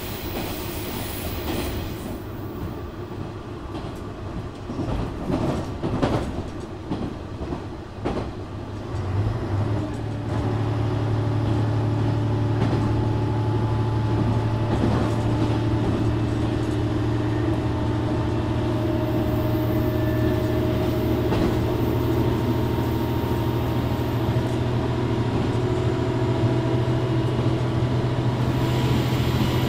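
JR Shikoku 1000 series diesel railcar on the move: a few clacks from the wheels over the rails, then about nine seconds in its diesel engine powers up to a steady drone that rises slowly in pitch as the railcar gathers speed.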